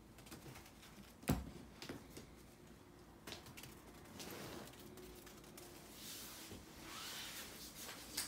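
Scattered light knocks and rustling of play with a cat wand toy: a plush toy on a string bouncing and dragging over a wooden floor, with one sharper thump about a second in.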